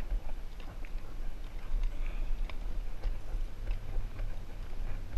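Scuba gear jostling against the moving camera: scattered light clicks and knocks over a steady low rumble of wind and handling on the microphone.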